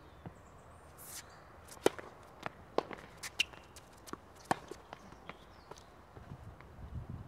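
Tennis rally on a hard court: sharp pops of racket strings striking the ball and the ball bouncing, about half a dozen spaced under a second apart, the loudest about two seconds in. A low rumble comes in near the end.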